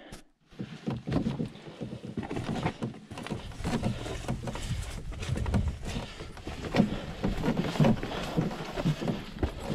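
Irregular footsteps and knocks over rocks, with rustling and handling noise from someone picking their way across slick boulders.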